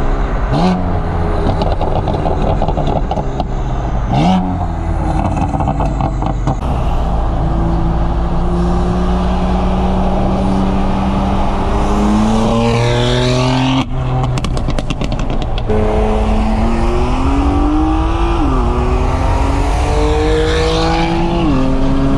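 BMW M4's S55 twin-turbo straight-six with a single 3.5-inch midpipe (resonator and both catalytic converters deleted), heard from a car alongside. In the first few seconds there are two sharp revs with crackling burbles. Then it accelerates hard, its pitch climbing steadily and dropping at an upshift about two-thirds of the way through, and again at two quicker upshifts near the end.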